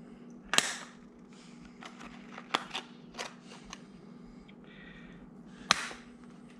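Handheld single-hole punch squeezed through a vertical-blind slat, snapping sharply. There is a loud snap about half a second in, a few lighter clicks in the middle, and another loud snap near the end.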